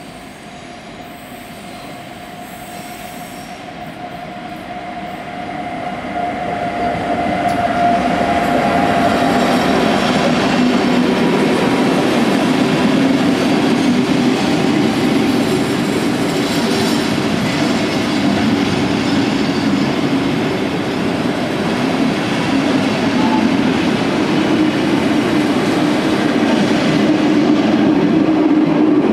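NSB El 18 electric locomotive and its passenger coaches approaching and running past at low speed on a curve. The sound grows from faint to loud over the first eight seconds, with a steady whine that fades out about then. It then holds as a steady rumble of wheels on rails as the coaches go by.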